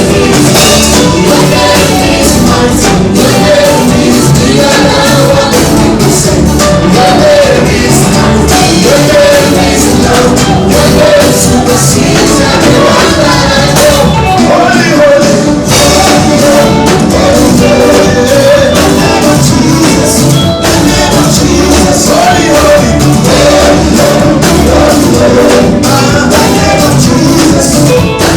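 Live gospel music: a band with drums and percussion playing while singing carries the melody over it.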